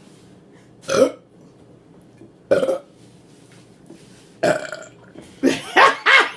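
A woman burping loudly several times: single burps about a second and a half apart, then a quick run of burps near the end.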